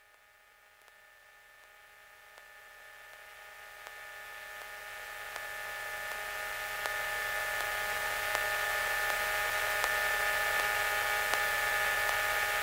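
Steady electrical hum and hiss with several fixed whining tones on an aircraft radio/intercom audio feed, in a gap between ATC transmissions. It starts almost silent and grows gradually louder over the first several seconds, then holds steady.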